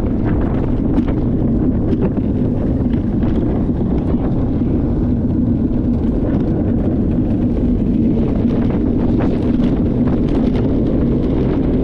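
Luge cart rolling fast down a concrete track: a steady rumble of the wheels on the concrete, mixed with wind buffeting the microphone, with a few short clicks from bumps in the track.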